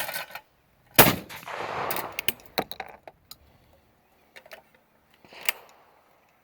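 A single shotgun shot about a second in, ringing off for about two seconds, followed by a few light clicks and knocks, with another sharp click near the end. The gun is a Turkish-made copy of a Baikal shotgun.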